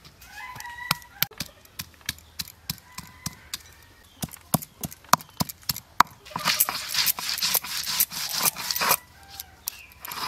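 Fresh ginger being crushed on a stone grinding slab with a stone roller (shil-nora): first a run of sharp knocks as the roller strikes the ginger, then, about six seconds in, a steady gritty scraping as the roller is ground back and forth over the slab for a few seconds.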